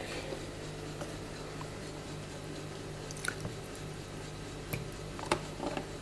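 Cream poured from a carton into a glass mug of cocoa: a faint liquid pour, with a few light clicks from handling the carton and mug, over a steady low hum.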